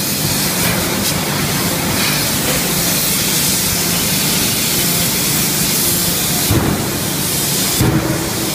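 DY5M electro-hydraulic closed-die forging hammer working hot steel: a steady loud hissing rush of forge-shop noise, with two sharp hammer blows in the last couple of seconds.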